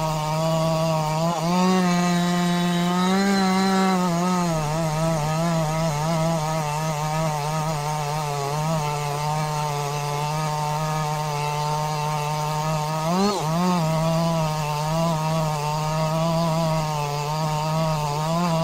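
Chainsaw engine running at high revs, steady and loud. The pitch wavers slightly as it cuts wood, with a brief rise about two seconds in and a quick dip and recovery around thirteen seconds in.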